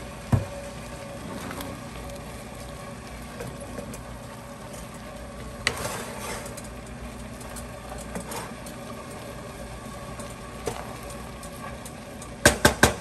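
Stovetop cooking: a steady hiss from pots on the stove, with a sharp knock about half a second in, another around six seconds in, and a quick run of clattering knocks near the end from pots and utensils.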